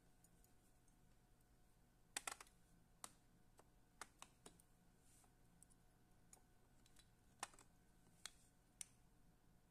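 Scattered light clicks and taps from hands working fly-tying tools and thread at a vise: a quick cluster about two seconds in, then single ticks, over a faint steady hum.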